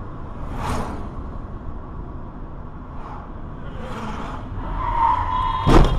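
Road and engine noise heard through a car dashcam, with other vehicles passing. Near the end a steady tone sounds for about a second, then a sudden loud thump.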